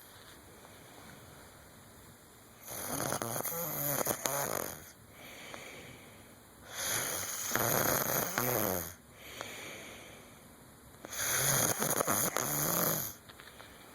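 A person snoring: three loud snores, each about two seconds long, coming about four seconds apart.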